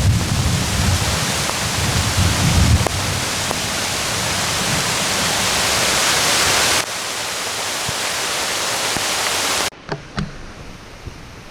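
Heavy rain hissing steadily, with low rumbling from wind on the microphone during the first few seconds. Near the end the rain sound cuts off abruptly, leaving a quieter background with a few light clicks.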